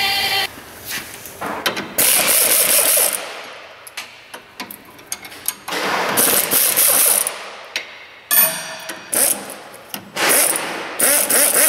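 Ratchet wrench worked in several bursts of a second or so, dense clicking with quieter knocks of tool on metal between, at the tie-rod adjuster sleeve during a front toe adjustment.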